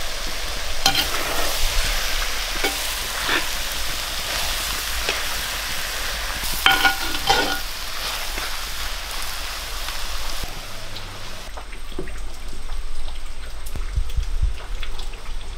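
Jackfruit seed and core stir fry sizzling in a black clay pot while a metal spoon stirs it, with a few sharper scrapes and knocks of the spoon against the pot. After about ten seconds the sizzle drops away and only softer stirring remains.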